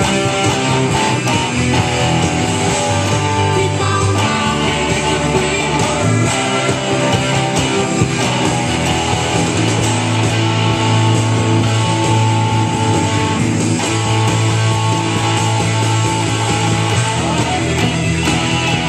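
Epiphone Les Paul electric guitar picked continuously in a rock style.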